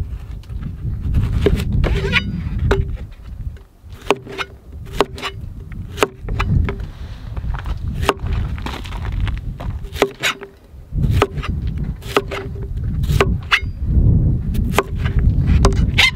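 Chef's knife chopping zucchini on a plastic cutting mat over a wooden table: sharp knocks about two a second, each with a short ringing note after it, over a low rumble.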